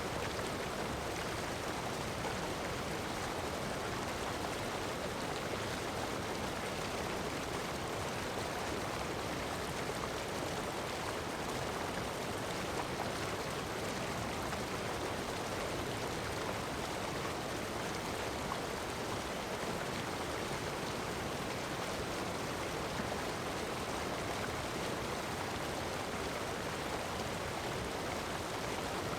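Heavy rain falling on sand mixed with ocean surf: a steady, unbroken wash of water noise with no distinct wave surges.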